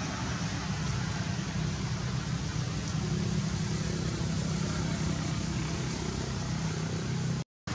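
Steady low engine rumble under an even hiss, broken by a brief moment of silence near the end.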